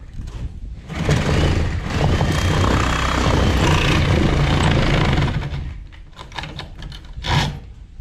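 A handheld power tool running steadily at the bottom plate of a garage wall for about four and a half seconds, then stopping, followed by a few short knocks and taps.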